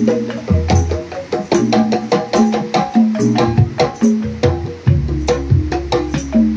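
Calung Sunda ensemble playing: several bamboo calung, rows of tuned bamboo tubes struck with mallets, sound a quick interlocking rhythm of woody pitched notes over low bass notes.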